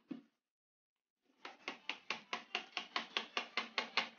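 Metal mesh sieve tapped and shaken to sift flour into a bowl: a fast, even run of light taps, about six a second, starting about one and a half seconds in.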